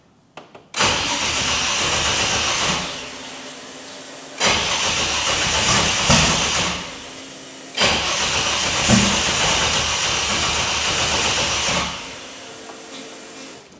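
Ford Barra inline-six being cranked over on the starter in three bursts of about two to four seconds, with a quieter steady hum in the gaps and after, as it is tried on a freshly loaded 93-octane tune.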